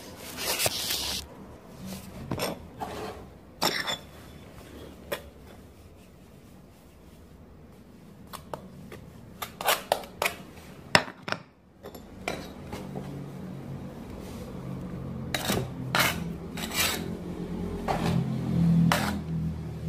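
Hand tools and hard objects being handled: a scattered series of sharp clinks and knocks, thickening in the last few seconds over a low hum.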